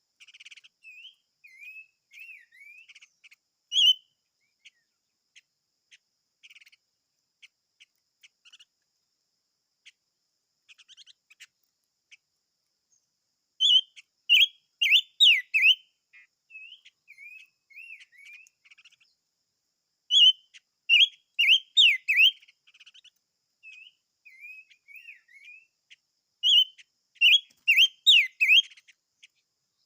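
Songbird the Vietnamese call 'chim ngũ sắc' (five-coloured bird) singing: loud phrases of quick rising and falling whistled notes come in three bursts about six seconds apart, with softer chirps in between.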